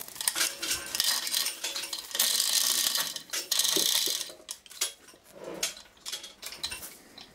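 Hand-operated chain hoist being worked: its steel chain rattling and clinking with many sharp metallic clicks, densest and loudest from about two to four seconds in.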